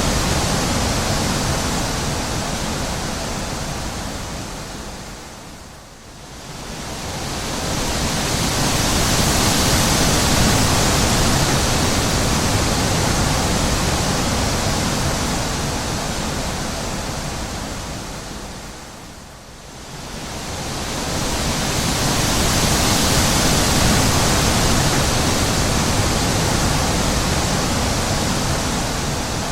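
Wind blowing in long gusts: a steady rushing that swells up and dies away, nearly fading out twice, about six seconds in and again near twenty seconds.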